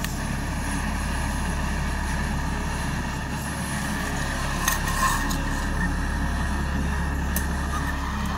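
Screw-on gas canister camping stove burning with a steady hiss, with a few light clicks and knocks about halfway and near the end.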